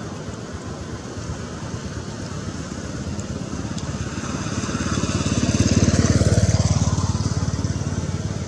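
A motor vehicle's engine passing by, growing louder to a peak about six seconds in and then fading.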